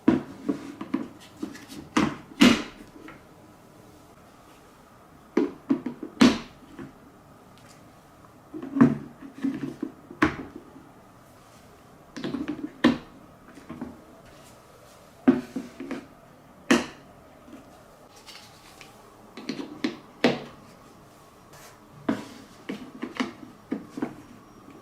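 Balls clattering down a plastic TrixTrack wave-slope marble run, step by step. Each run comes as a rattling burst of knocks ending in a few sharp clacks, and a new one starts every two to four seconds.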